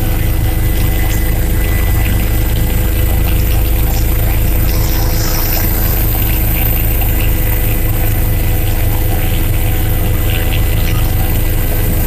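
Police helicopter in flight: the steady, loud drone of its turbine engine and rotor, unchanging throughout.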